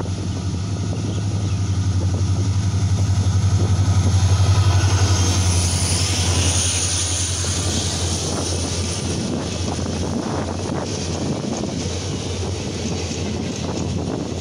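WDP-4D diesel-electric locomotive's two-stroke EMD diesel engine running hard as it passes at speed, with a steady low hum that is loudest about four seconds in and then fades. Passenger coaches then roll by with quick repeated clicks of wheels over the rail joints.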